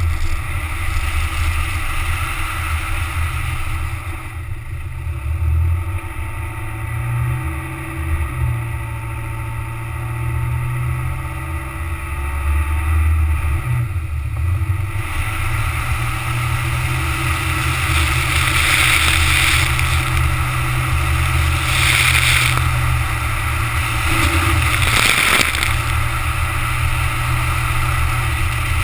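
Car driving across beach sand, heard from a camera mounted on its side: a steady low rumble of engine, tyres and wind buffeting the microphone. A hissing rush grows louder in the second half, with three stronger surges in the last third.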